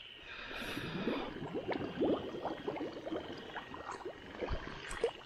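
Shallow muddy water sloshing and gurgling in quick little splashes as floating weeds are pushed aside by hand.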